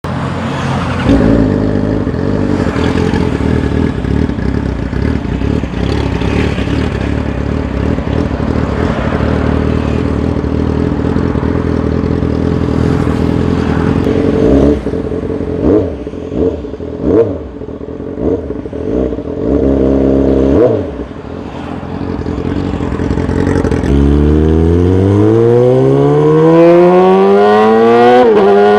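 Motorcycle engine through a loud exhaust, running steadily at first, then blipped in a few short revs around the middle. In the last few seconds it accelerates hard, the pitch climbing, briefly dropping at a gear change and climbing again.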